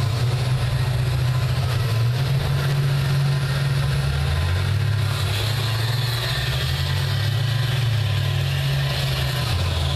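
School bus engines running under load as the buses push against each other, a deep steady rumble whose pitch shifts a little about halfway.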